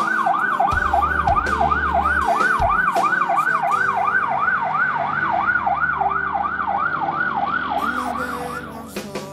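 Ambulance siren on a fast yelp, its pitch rising and falling about three times a second. It fades away near the end and cuts off shortly before the close.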